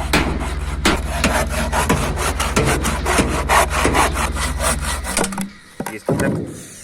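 Hand saw cutting wood in quick, regular strokes, about three a second, stopping about five seconds in.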